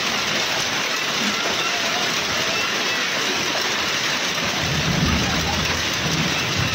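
Heavy rain mixed with hail pelting down steadily, a dense hiss of hailstones and raindrops striking the ground and roof. A low rumble rises briefly about halfway through.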